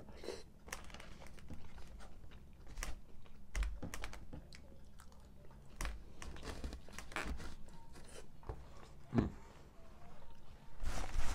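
Close-miked chewing and biting of food, with scattered light clicks and scrapes of a fork against a styrofoam takeout tray, and a louder knock near the end.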